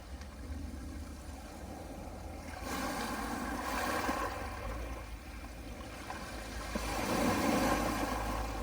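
Small sea waves washing onto a pebble beach, surging twice about four seconds apart over a steady low rumble.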